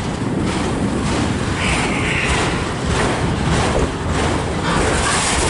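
Freight cars of a long CSX mixed freight rolling slowly past, wheels rumbling and clattering over the rails, with a brief high hiss about two seconds in.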